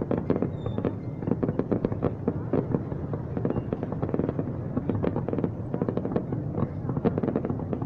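Fireworks going off in rapid succession: a dense, unbroken run of overlapping bangs and crackles, several a second.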